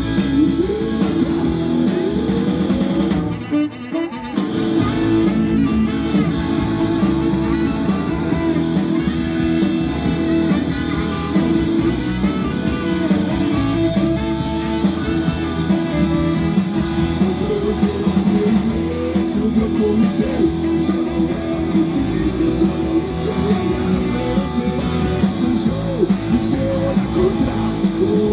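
Rock band playing an instrumental passage: guitars over bass and drums, with a short dip in the sound about four seconds in.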